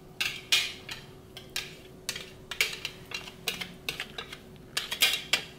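Small metal whisk scraping and knocking inside a plastic NutriBullet blender cup, working thick blended dressing out: an irregular run of short scrapes and taps, several a second.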